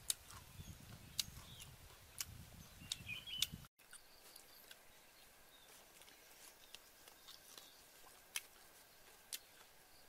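Faint forest ambience. Scattered sharp clicks and a few short bird-like chirps sit over a low rumble, which stops abruptly about four seconds in. After that a faint steady high tone runs under sharp clicks that come about once a second.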